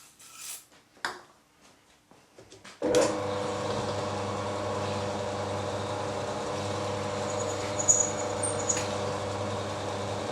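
A few light clicks, then about three seconds in a milling machine comes in suddenly and runs steadily, its motor and gearing making a hum with several steady tones, while its spindle turns a half-inch taper-shank reamer in a blind hole.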